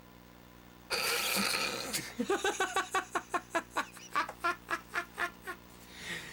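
A man bursting into loud, cackling laughter after his own joke's punchline: a breathy outburst about a second in, then a run of rapid ha-ha pulses, about four or five a second, dying away near the end.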